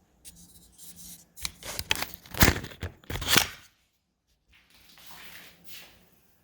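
Handling noise from knives being set up for a balance: a run of scrapes and sharp clicks, with two loud knocks about two and a half and three and a quarter seconds in, then softer rustling.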